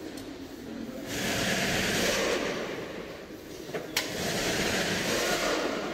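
Workshop background noise: two long hissing swells, each a second or two, over a low rumble, with a sharp click about four seconds in.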